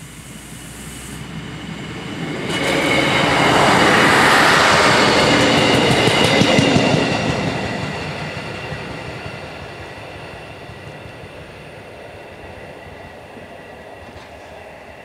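DB Class 628 diesel multiple unit passing over the level crossing. It swells up quickly, is loudest for a few seconds with its wheels clicking over the rail joints, then fades away as it runs on.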